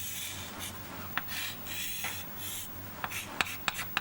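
A pen scratching across a writing surface in a run of separate strokes as a diagram is drawn, with a few light clicks of the pen tip.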